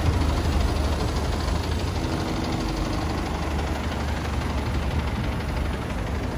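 Red double-decker bus's engine running close by: a steady low drone.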